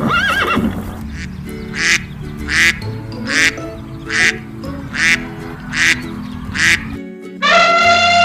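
Duck quacking: seven short quacks about three-quarters of a second apart, over children's background music. It opens on the end of a wavering horse whinny, and near the end a long, steady, high-pitched animal call begins.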